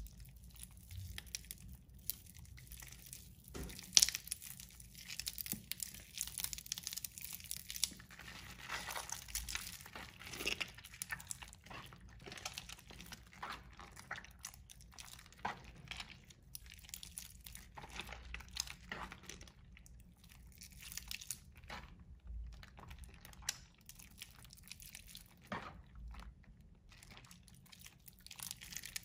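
Hands squeezing and crumbling water-soaked pink bar soap in a plastic tub, giving a run of soft crackling and crunching as the mushy soap breaks apart, with one sharp click about four seconds in.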